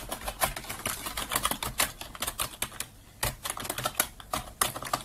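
Typing on a computer keyboard: a run of quick, irregular key clicks, several a second.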